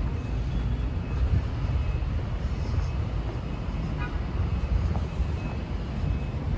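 City street noise: a steady low rumble of traffic.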